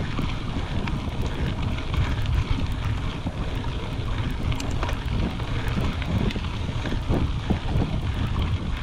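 Wind rumbling over the microphone of a mountain bike's handlebar camera, with the tyres rolling over a gravel dirt road and a constant patter of small clicks and rattles.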